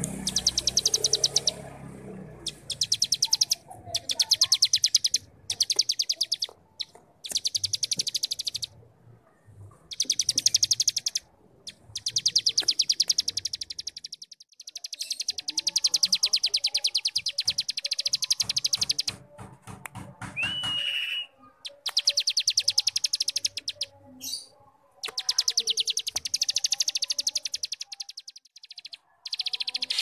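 A cigun singing in its 'ngebrem' style: a series of very rapid, buzzy trills, each one to four seconds long with short pauses between. About two-thirds of the way through comes one short rising whistled note.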